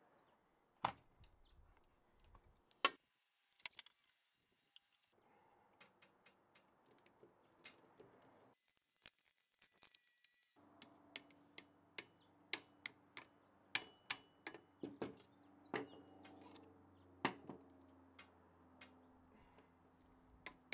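Irregular sharp metallic clicks and clinks of hand tools, bolts and small motor parts being handled and set down during disassembly of an old electric motor, coming thick and fast in the second half.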